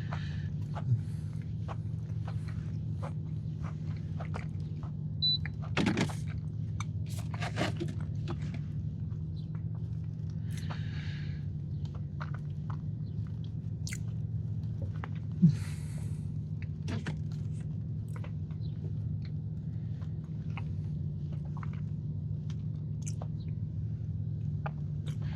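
Close-up chewing of a soft churro cookie with a cinnamon-sugar crust: scattered small crunches and mouth clicks over a steady low hum.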